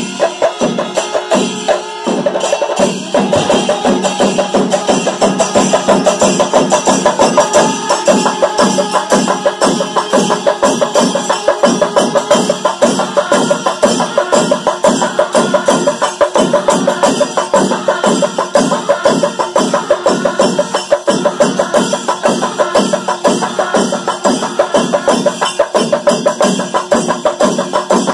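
Kerala chenda melam temple percussion ensemble: a rank of chenda drums beaten in a fast, steady rhythm, with metallic cymbal clashes and the held notes of kuzhal pipes and curved kombu horns over them.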